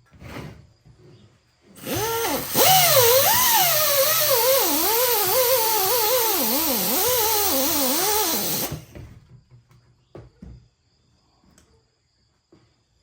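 Handheld rotary power tool sanding and cleaning the area around a crack in a 1JZ oil pan before welding. It runs for about seven seconds, its whine sagging and rising as it is pressed into the metal, then stops; a few light knocks follow.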